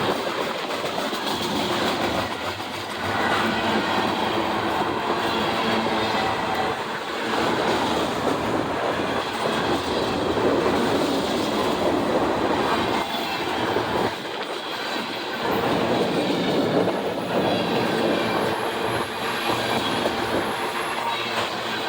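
Freight cars of a passing train rolling by at close range, steel wheels rumbling and clattering over the rails, with a thin high wheel squeal near the end.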